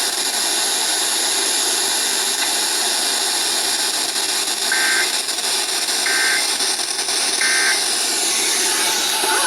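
Loud radio static hiss, broken by three short, shrill digital data bursts about 1.4 seconds apart starting about halfway through: the Emergency Alert System end-of-message tones that close the test.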